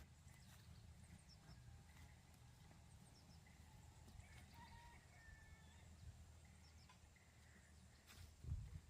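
Near silence: faint outdoor ambience with a low rumble, a few faint short high chirps, and a soft thump near the end.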